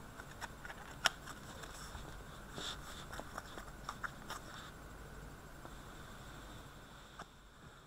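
Hockey trading cards being handled and slid through by hand: faint rustling with scattered light clicks and one sharper snap about a second in, falling nearly silent near the end.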